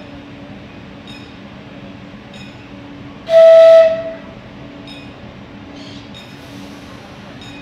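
A single short, loud blast of a CAF-UTA 3700 light-rail train's horn, one steady tone lasting under a second, a little over three seconds in. A steady low hum with faint regular ticks, about one a second, runs beneath it.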